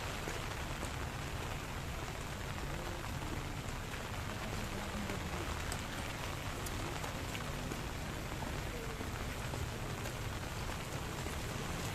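Steady rain falling, with scattered single drops ticking.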